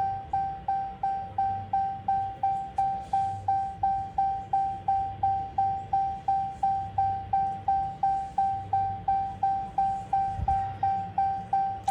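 Electronic warning chime dinging steadily, about three times a second, each ding a single mid-pitched tone that fades quickly.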